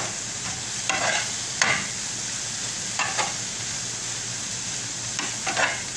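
Egg bhurji sizzling in an oiled pan while a spatula stirs and scrapes it in several short strokes over a steady frying hiss.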